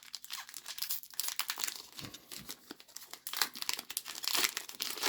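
Foil booster pack wrapper crinkling and tearing as it is opened by hand, a dense irregular crackle.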